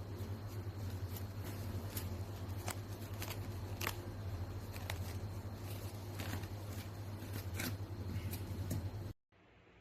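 Irregular small clicks and taps of small parts being handled, over a steady low hum. Near the end it cuts off abruptly to faint room tone.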